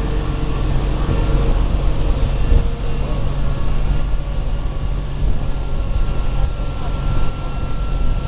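A watercraft engine running steadily under way, with a low engine drone beneath a loud rushing noise.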